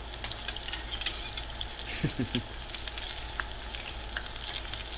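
Apple fritters deep-frying in hot oil: a steady sizzle with scattered crackling pops, as a metal spoon moves the fritters around in the pan.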